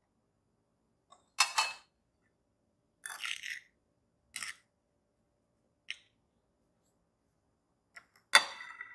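Metal fork scraping through cinnamon sugar and clinking against a porcelain bowl while dough balls are rolled in the coating. There are about five short separate strokes, the loudest near the end.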